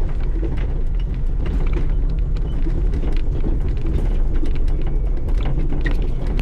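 Side-by-side UTV engine running under a steady low rumble, with the machine's body and suspension clattering and creaking as it crawls over rough, rocky trail.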